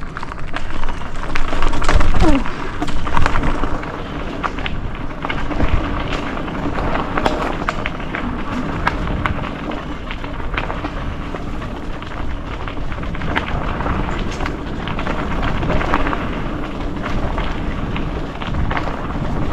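Mountain bike rolling fast down a dirt singletrack: tyres crunching over the trail and the bike rattling and clicking over roots and rocks, with wind rumbling on the microphone. Loudest about two seconds in.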